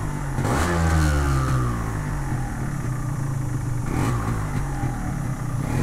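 Yamaha RXZ's two-stroke single-cylinder engine idling, with a soft exhaust note that is not loud. It is revved once about half a second in and falls back to idle, then given a smaller blip of the throttle about four seconds in.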